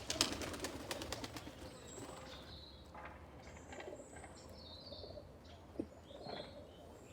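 Pigeons taking off in a burst of rapid wing flapping and clapping that lasts about a second and a half. High bird chirps and soft cooing follow.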